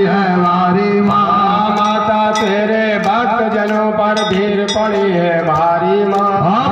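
A man singing a Hindu devotional aarti into a microphone, with a steady held note beneath the voice and faint regular clinks of small hand cymbals.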